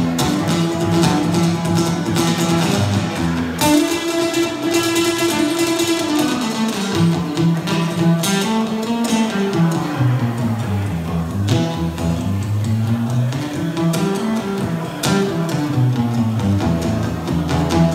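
Acoustic guitar playing an instrumental break, its lower notes climbing and falling in runs under ringing chords.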